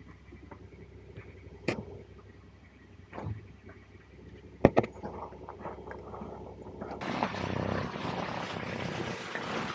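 Handling noise from a small camera worn by a cat: faint rubbing with a few scattered sharp knocks as the cat moves, then a louder steady noise from about seven seconds in.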